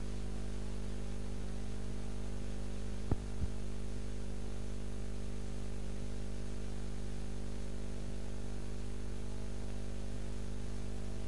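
Steady electrical mains hum with a layer of hiss, broken by two short clicks about three seconds in.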